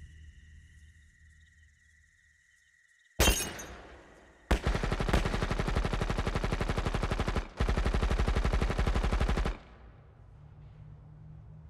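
A single sharp crack with a shattering tail, then two long bursts of rapid machine-gun fire, the first about three seconds long and the second about two, with a brief break between them.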